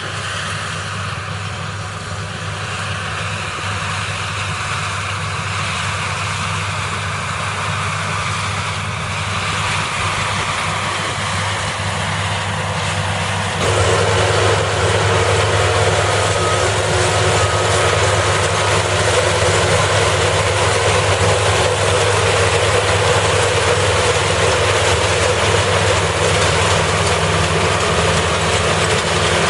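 Head-feeding rice combine harvester running steadily, its engine hum under a wide mechanical noise. About fourteen seconds in, the sound steps up suddenly and stays louder and fuller.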